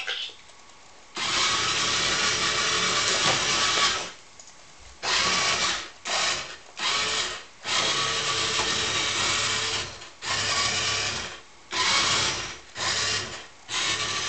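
A toy Dalek's small electric motor and gears whirring in stop-start bursts as it turns and moves: a long run of about three seconds, then a string of shorter runs, some under a second, with brief pauses between.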